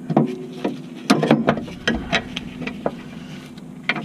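Irregular metallic clicks and knocks as the lower strut bolt is worked through the steering knuckle into the bottom mount of a Tein Flex Z coilover, over a steady low hum.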